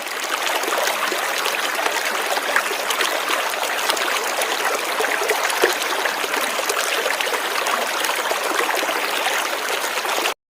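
River water flowing, a steady rushing babble of running water that cuts off suddenly near the end.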